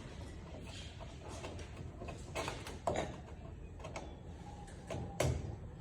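Scattered light clicks and knocks of parts and tools being handled while covers are fitted to the underside of a Citabria airplane, a few over several seconds, the loudest knock near the end, over a low steady hum.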